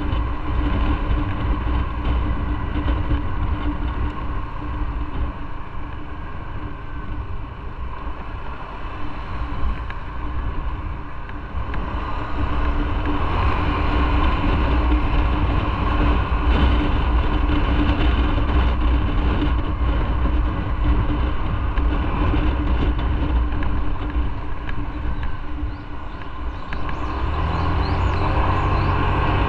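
Motorcycle engine running steadily while riding, mixed with road and wind noise. It gets louder about halfway through, and the low engine note shifts near the end.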